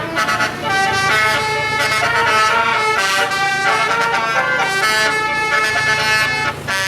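Telolet bus horn playing a melody, a quick run of horn notes stepping from pitch to pitch, over a steady low hum.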